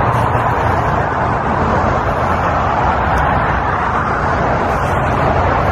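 Road traffic noise: steady tyre and engine noise of vehicles going by on the highway.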